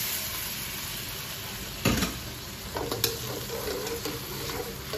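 Diced hotdog and carrots sizzling in oil in a wok while a metal spatula stirs and scrapes through them, with a sharp knock of the spatula on the wok about two seconds in.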